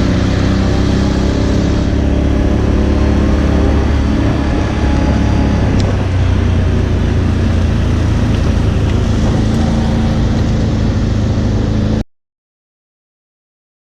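ATV engine running while riding, its pitch shifting up and down over the first couple of seconds and then holding steady over heavy low noise. The sound cuts off abruptly to total silence about twelve seconds in.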